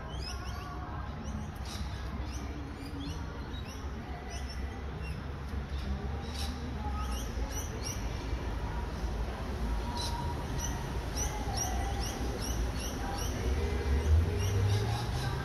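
Outdoor ambience: small birds chirping in many quick, high calls over a low rumble, which swells briefly near the end.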